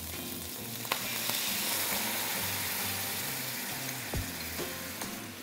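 Seasoning sauce poured into a hot wok of fried minced pork and garlic: a burst of sizzling that swells about a second in and slowly dies down. A light clink of ladle or bowl against the wok comes just before it.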